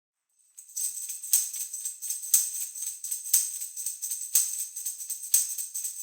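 Song intro of light, high-pitched rhythmic percussion, a fast shaking pattern with a stronger accent about once a second, starting about half a second in; no singing yet.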